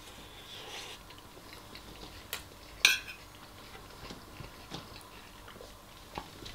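Metal spoon clinking and scraping against a ceramic bowl while scooping rice, with a few separate clinks, the loudest about three seconds in.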